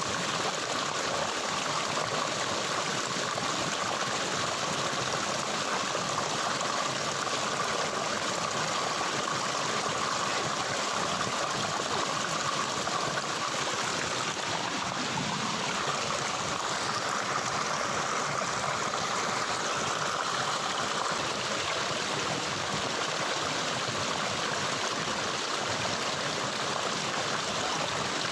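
Stream water flowing steadily in an even, continuous rush.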